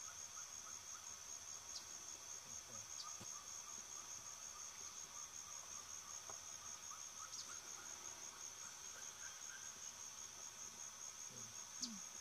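High-pitched insect trill, steady and rapidly pulsing, with faint short bird chirps under it.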